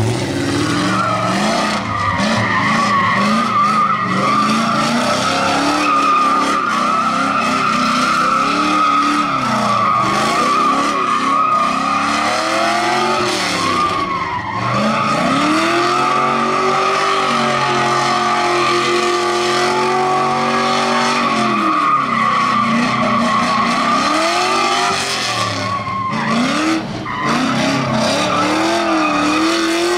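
Drift car sliding with a continuous high tire squeal while its engine revs rise and fall again and again. The squeal breaks off briefly once or twice.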